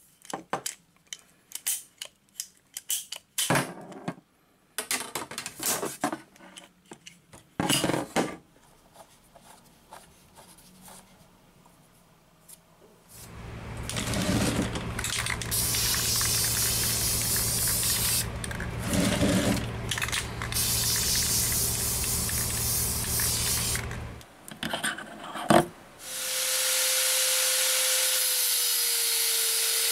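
A ratcheting pipe cutter clicks and snaps through PVC pipe in a string of short strokes. Then an aerosol spray can hisses in long bursts. Near the end an angle grinder starts and runs steadily as it cuts metal, its pitch dipping slightly under load.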